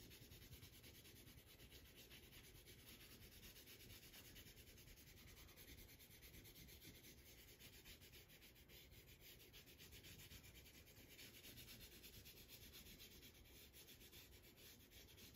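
Faint, steady scratchy rubbing of a Prismacolor colored-pencil stick shading back and forth across a foam-core board.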